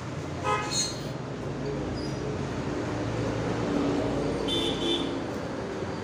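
Steady street traffic noise with vehicle engines running, swelling a little in the middle. There is a short beep about half a second in.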